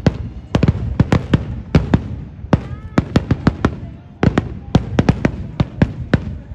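Fireworks display: aerial shells bursting in quick clusters of several sharp bangs a second, about twenty in all, each ringing briefly, with short lulls between the clusters.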